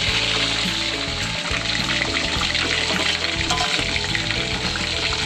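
Chicken pieces deep-frying in hot oil in a wok: a steady sizzle, with background music playing.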